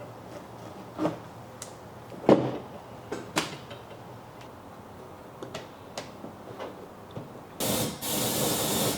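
A magnet-backed cleaning pad worked around inside a Ferrari 360 headlight, with a few sharp clicks and knocks of the magnets against the lamp's plastic, the loudest about two seconds in. Near the end, about a second and a half of loud hissing air.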